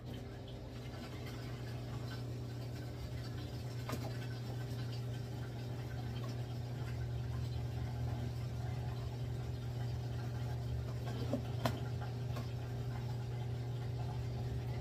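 A steady low appliance hum comes on suddenly and holds an even pitch. Over it are a few light clicks of a spoon against a glass baking dish as cheese stuffing is spooned into chicken breasts.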